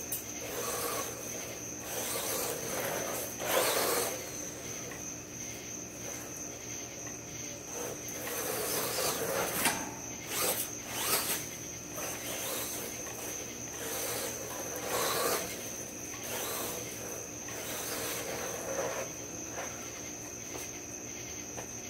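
A Wltoys 124019 RC car makes several passes over dirt. Its electric motor whine and tyre noise swell and fade each time, loudest around a few seconds in and in the middle. Underneath runs a steady, high-pitched chorus of crickets.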